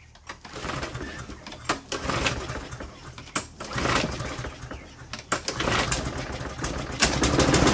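Walk-behind push mower's small gasoline engine being pull-started after a dry carburetor was fed fuel by tipping the mower: irregular bursts at first, then the engine catches and runs, loudest and steadiest in the last second or so.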